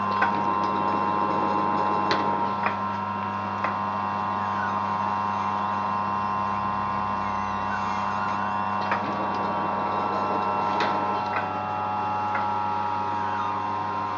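Antique George Birch metal planer running under its attached drive system: a steady mechanical hum and whine, broken by irregular sharp clicks and knocks and a few short rising-and-falling squeals a few seconds apart.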